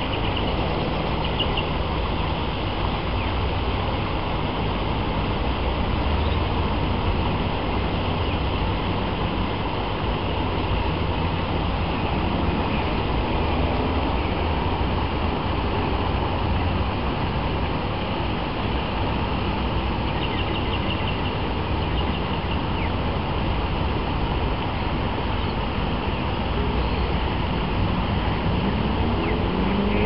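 Steady hum of distant road traffic, with a few faint high chirps.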